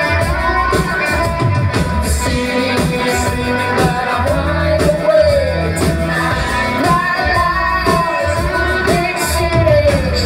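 Live rock band playing loudly: a male lead singer's voice over electric guitar, drums with a steady beat, heavy bass and keyboards.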